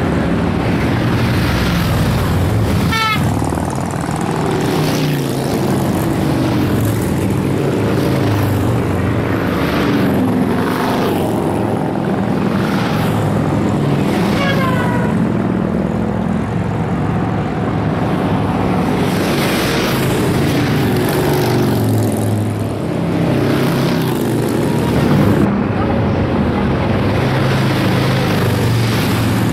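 Large touring motorcycles riding past one after another at cruising speed, their engines making a steady drone that swells slightly as each bike goes by.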